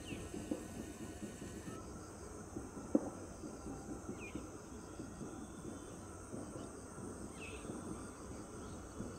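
Rural outdoor ambience: a steady high buzz of insects with a few short bird chirps, over an uneven low rumble. A single sharp click about three seconds in.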